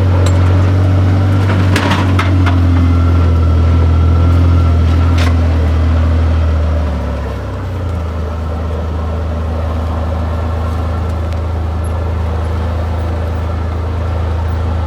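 Vehicle engine running steadily with a deep hum that eases slightly about seven seconds in. A few sharp clicks or knocks sound over it in the first five seconds.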